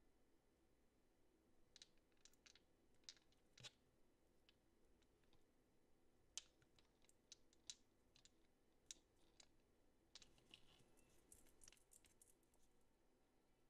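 Faint, scattered clicks and taps of long fingernails and small plastic gel polish bottles being handled, with a quick run of small clicks near the end.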